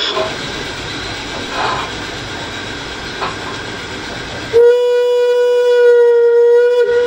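G-scale model steam locomotive's sound unit: a steady noise with a few light clicks, then, about four and a half seconds in, one long steady whistle blast lasting about two and a half seconds.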